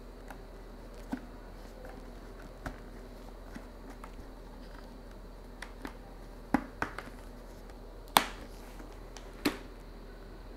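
Scattered light clicks and taps of hands handling a motorcycle helmet, pressing its padded lining back in around a clip-on Bluetooth headset and its wire. The clicks bunch together in the second half, with the sharpest about eight seconds in.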